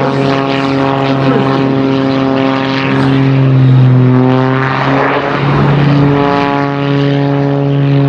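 MXS-RH aerobatic monoplane's propeller and 540-cubic-inch piston engine droning loudly in flight. The pitch sags a little and swells in loudness around the middle, wavers briefly, then runs steady again.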